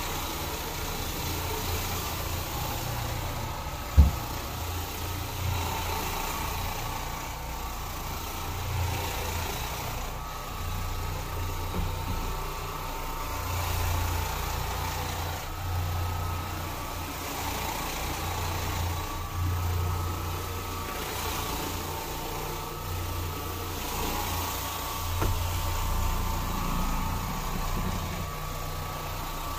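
Carpet-cleaning machine running steadily, its low hum swelling and easing every second or two over a faint whine, with one sharp knock about four seconds in.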